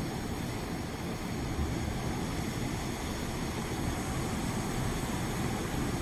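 Indian Ocean surf breaking and washing over shoreline rocks: a steady, low rumble of waves.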